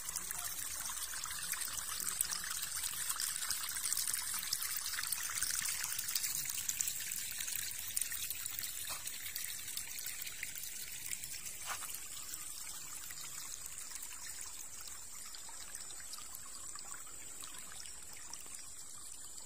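River water trickling and running steadily, a continuous splashing hiss that gradually gets quieter in the second half.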